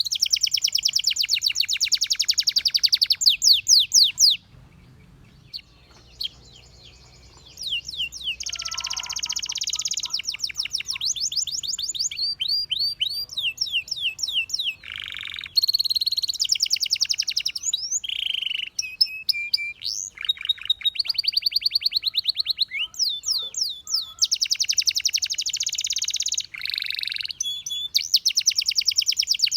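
A canary singing in fast, high trills and rolling phrases of a few seconds each, with a pause of about three seconds early on.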